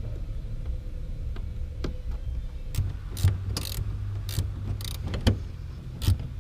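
Irregular clicks and rustling handling noises over a low steady rumble, the clicks coming thickest in the second half.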